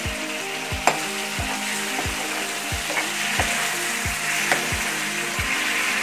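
Tomato purée sizzling in hot oil and spice paste in a frying pan while a steel spoon stirs it. The spoon knocks and scrapes against the pan a few times, sharpest about a second in.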